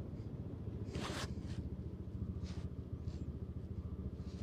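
Motorcycle engine running at a low, steady idle. A short rustle comes about a second in, with a few fainter scrapes after it.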